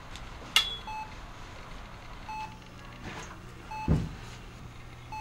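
Short electronic beep repeating steadily about every one and a half seconds, with a sharp click about half a second in and a dull thump about four seconds in.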